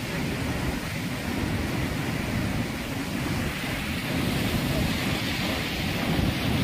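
Wind rumbling on the microphone over the steady rush of sea waves breaking on a shallow reef.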